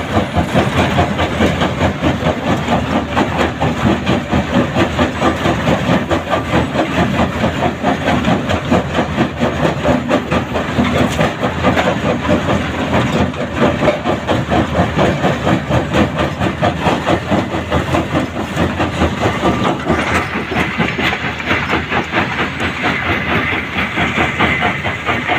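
Mobile stone crusher running loudly, with a fast, even, rhythmic clatter. About twenty seconds in, a higher hiss joins it.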